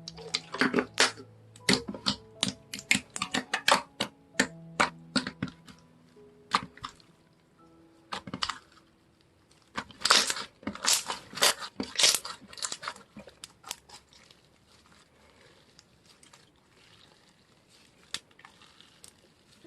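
Slime being handled, squeezed and stretched, giving sharp clicking and popping sounds in quick clusters. The pops are dense over the first several seconds and again about ten seconds in, then thin out. Soft background music plays underneath.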